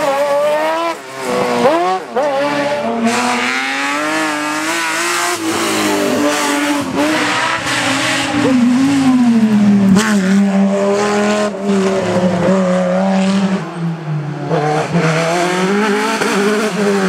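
Hillclimb race cars driving hard up the course one after another. The engine notes rise and fall repeatedly as they rev and change gear.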